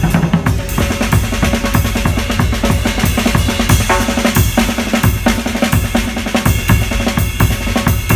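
Acoustic drum kit played solo in a fast, dense run of triplet fills across snare and toms, with the bass drum pumping underneath and cymbals ringing over the top.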